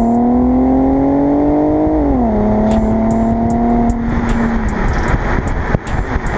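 Infiniti Q50 Hybrid's V6 heard at the tailpipe through a newly fitted axle-back exhaust while driving. The engine note climbs as the car accelerates, falls at a gear change about two seconds in, then holds steady. About four seconds in the engine note fades away and rushing wind and road noise take over.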